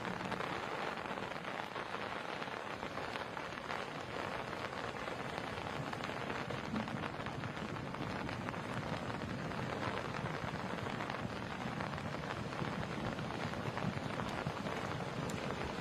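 The Rio Ruidoso in flash flood, its floodwater rushing in a steady, unbroken torrent, recorded on a cell phone.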